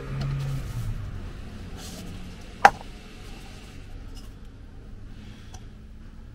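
Faint handling sounds from a freshly opened sparkling wine bottle and a paper cup, with one sharp knock about two and a half seconds in.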